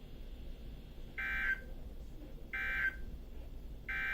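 Emergency Alert System SAME data bursts: three short, identical buzzy warbles about a second and a half apart, the last running just past the end. Coming after the spoken warning, they are the end-of-message code that closes the alert.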